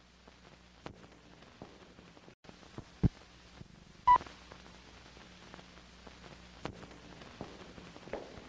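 Crackle and clicks of an old optical film soundtrack running over the leader, with a low steady hum. There is a sharp thump about three seconds in, then a single short high beep about four seconds in, like a leader sync pop.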